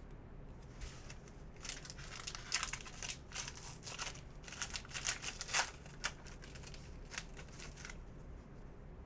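Crinkling and rustling as trading cards and their plastic packaging are handled. It comes as a run of short, sharp rustles from about a second and a half to six seconds in.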